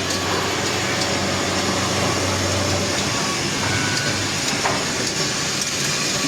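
Chair-leg drilling and threaded-insert machine running, a steady mechanical noise with a low hum that drops away about halfway through.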